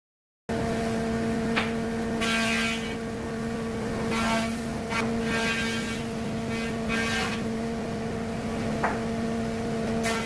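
A woodshop machine's motor runs with a steady hum. Over it, long iroko boards being handled on a steel cart make short scraping swishes and knocks every second or two.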